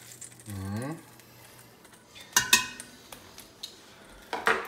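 Metal ladle clinking against metal cooking pots a few times, sharp ringing clinks about two and a half seconds in and again near the end. A short falling vocal sound comes about half a second in.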